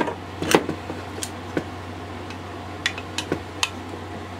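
Scattered sharp metallic clicks and taps of a hex key working the crankcase bolts of a Husqvarna 365 Special chainsaw as they are snugged down, about six in all, the loudest about half a second in. A steady low hum runs underneath.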